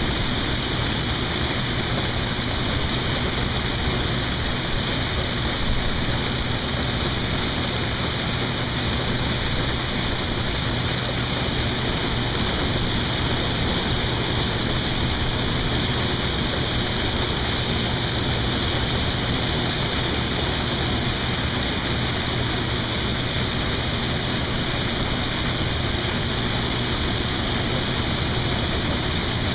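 Harvest machinery running steadily at work: a constant low engine hum under an even, rushing noise that does not change.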